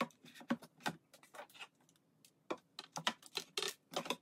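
Clear acrylic organizer trays being set down, pressed and shifted in a drawer: a run of light, sharp plastic clicks and taps that pauses briefly about halfway, then comes faster near the end.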